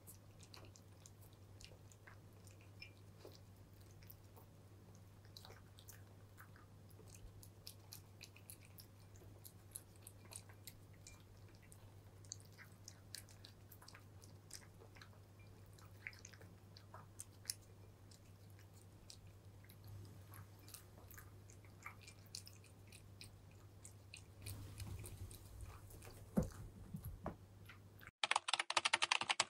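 Two cats crunching and chewing dry kibble from bowls: a faint, irregular scatter of crisp crunches over a low steady hum. Near the end a sudden loud burst of noise cuts in and stops abruptly.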